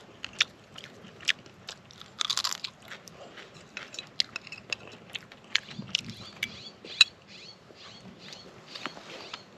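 A person biting into and chewing cooked bluegill with rice, with irregular crisp crunches and clicks and a denser crunch a couple of seconds in.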